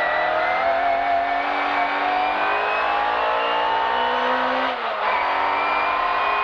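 Mark 1 Mini Cooper S's A-series four-cylinder engine accelerating hard, its pitch climbing steadily. About five seconds in it drops briefly for a gear change, then climbs again.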